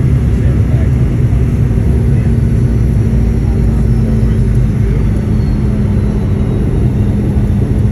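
Steady low rumble of an airliner rolling along the runway after landing, heard from inside the cabin, with a constant droning hum over it.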